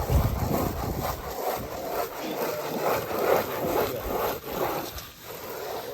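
Handsaw cutting through wood in quick, even back-and-forth strokes, easing off near the end.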